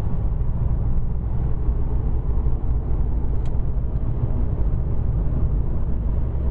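Steady low rumble of a car driving along a paved road, heard from inside the cabin. A faint click comes about three and a half seconds in.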